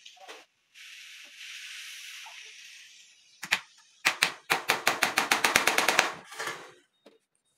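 Hammer striking at the corner of a wooden sand-sieve frame, fixing the wire mesh. A steady hiss comes first, then two sharp knocks, then a fast, even run of light taps, about eight a second, for two seconds.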